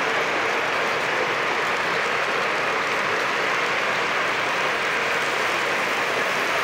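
Lionel model freight train cars rolling past on three-rail track, making a steady, even rolling noise.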